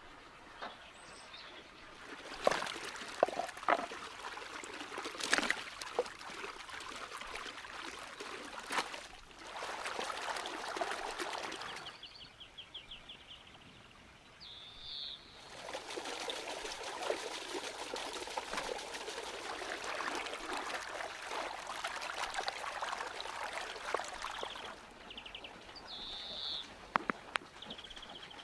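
Falling water hissing steadily, with scattered ticks, in two long stretches that start and stop abruptly. Short high bird chirps sound in the quieter gaps between them.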